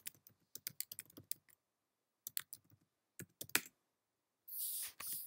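Typing on a computer keyboard: quick runs of keystroke clicks in short bursts with pauses between them, then a brief hiss near the end.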